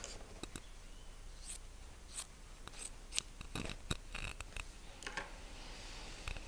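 Cotton quilt fabric rustling and sliding as it is turned and smoothed flat on the sewing-machine table, with a few sharp clicks about three to four seconds in.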